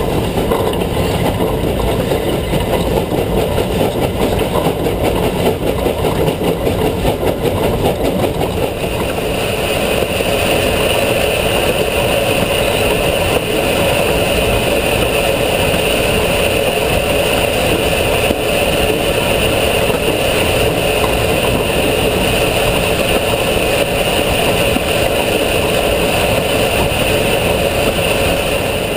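Steam locomotive 487, a narrow-gauge K-36 2-8-2, running, heard from its front at the headlight: a loud, steady rush of running noise, with a higher hiss joining about nine seconds in.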